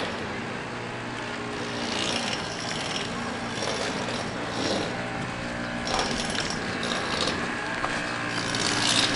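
Motorcycle engine running at low speed, a steady hum, with a few short noisy surges as it rolls over a rough gravel road.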